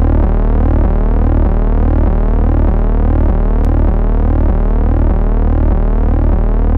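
Synthesizer music: repeating swooping electronic tones over a steady low bass.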